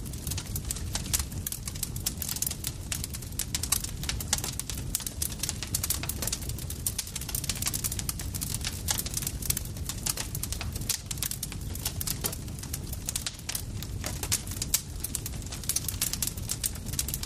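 Campfire crackling steadily, with many quick, irregular sharp pops over a low, continuous rumble of burning.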